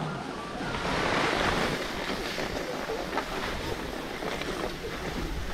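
Skis sliding over snow in a steady hiss, with wind noise on the microphone underneath.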